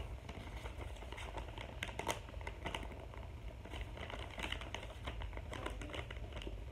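Hands handling paper and craft materials: a run of irregular small clicks, taps and rustles.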